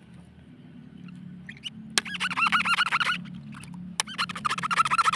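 Two bursts of rapid, high-pitched squeaky chirping, each about a second long and opening with a sharp click, over a low steady hum.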